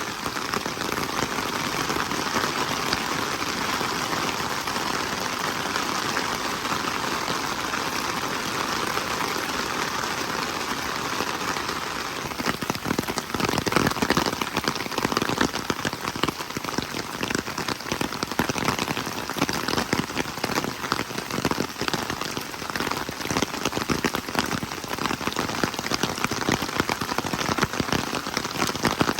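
Rain falling steadily. About twelve seconds in it turns louder and more uneven, with many separate drop hits.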